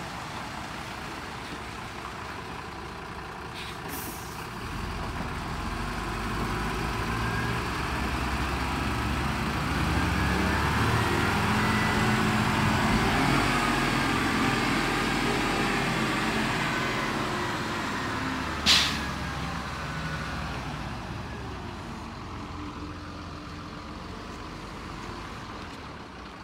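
BharatBenz tipper truck's diesel engine running as the truck drives past, growing louder to a peak near the middle and then fading as it pulls away. A short, loud hiss of its air brakes a little past the middle, with a fainter hiss early on.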